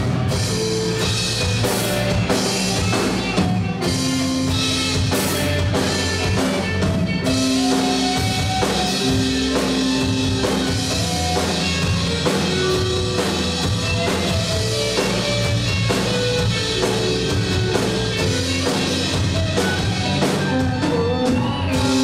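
Live rock band playing an instrumental passage: an electric guitar plays a melodic lead of held and sliding notes over drum kit and bass, with no singing.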